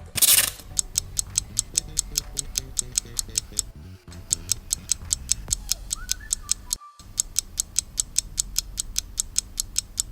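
Countdown timer sound effect: a quick whoosh, then steady clock-like ticking at about four ticks a second over faint low music, with two brief breaks.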